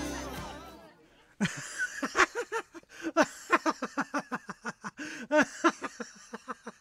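Background music fading out, then a small group of women laughing in quick repeated bursts.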